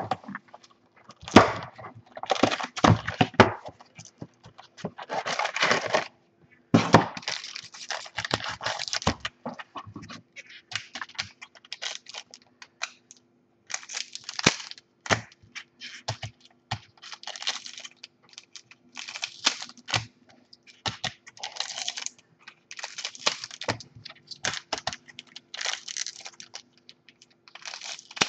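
2015 NRL Elite rugby league trading-card packs being handled and opened: irregular crinkling and rustling of the foil pack wrappers, with sharp clicks and taps of cards and packs on a wooden table.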